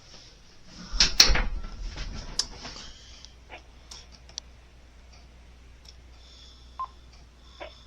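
Cordless phone handset being handled and swapped: a burst of clattering knocks and clicks about a second in, then scattered light clicks and a short beep near the end.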